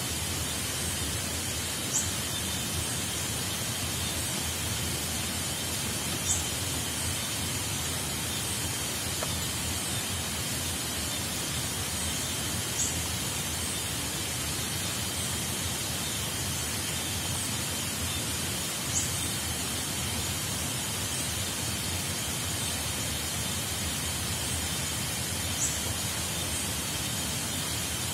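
Steady hiss of rain in tropical forest at night, with a thin, steady high insect drone and a short high chirp about every six seconds.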